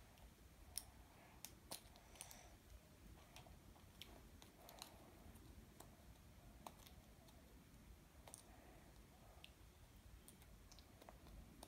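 Faint scattered clicks of a small plastic surprise-egg toy capsule being handled and worked at with the fingers, the sharpest two coming in the first two seconds, over a very quiet room.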